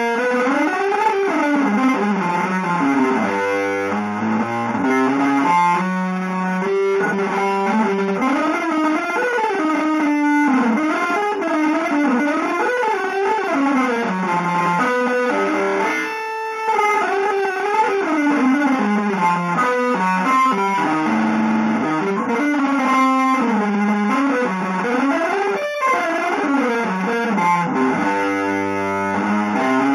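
Electric guitar playing fast, winding melodic runs that sweep up and down in pitch almost without pause, in an avant-garde jazz style.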